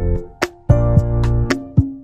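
Background music: plucked notes and keys with a bass line in a light, bouncy rhythm.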